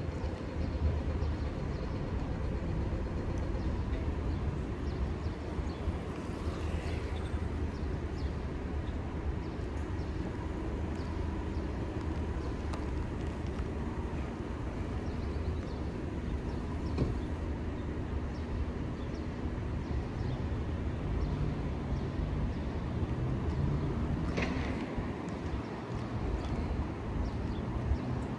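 Wind and road noise from riding an electric motorcycle in city traffic: a steady low rumble with a hiss over it, and a faint steady whine. Two brief higher sounds stand out, a few seconds in and again near the end.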